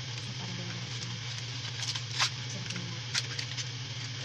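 A small cardboard box being opened and handled: a few sharp clicks and rustles, the loudest about two seconds in, over a steady low hum.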